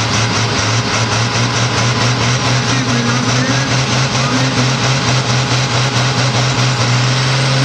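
Pulling tractor's diesel engine running flat out under full load as it drags a weight-transfer sled, a loud steady drone that edges up in pitch near the end.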